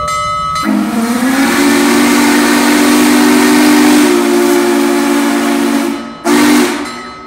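Union Pacific 844 steam locomotive's whistle: a loud chord of several notes held for about five seconds, then a short second blast near the end. The engine's bell rings for the first moment before the whistle starts.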